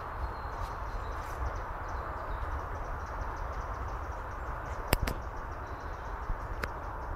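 Outdoor woodland ambience on a handheld phone's microphone: a steady low rumble and hiss, with two sharp cracks close together about five seconds in and a fainter one a moment later.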